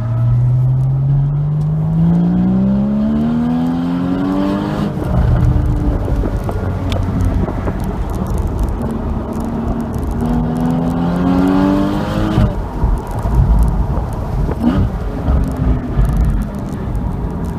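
Porsche Boxster 981 GTS flat-six engine pulling hard, its note climbing steadily for about five seconds before the revs drop. It climbs again and falls sharply about two-thirds of the way through, over a steady low road and wind rumble.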